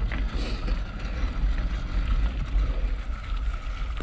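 Mountain bike rolling along a dirt trail, heard from a camera mounted on its handlebars: a steady low rumble of the tyres on the ground and the bars shaking.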